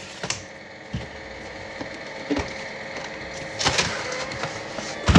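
Kitchen work sounds: a handful of short knocks and clunks as things are handled and set down on a wooden counter, over a steady hum of kitchen equipment.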